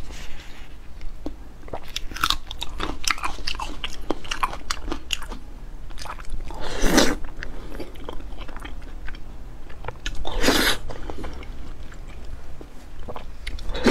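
Close-miked mukbang eating: wet chewing with many quick mouth clicks and smacks, and two louder half-second slurps of saucy food about seven and ten seconds in.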